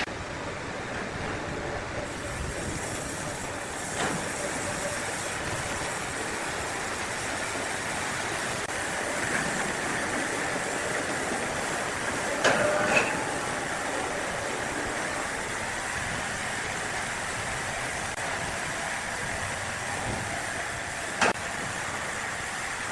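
Sawmill machinery running steadily, with a short cluster of knocks about halfway through and one sharp knock near the end.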